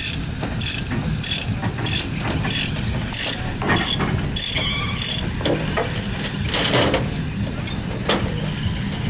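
Ratchet tie-down or chain binder being worked on a trailer, clicking steadily about twice a second for the first four seconds or so, over a low steady engine hum.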